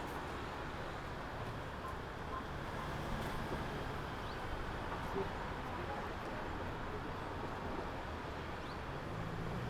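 Steady city background noise: a continuous hum of traffic, with a low engine drone swelling briefly a couple of seconds in and again near the end.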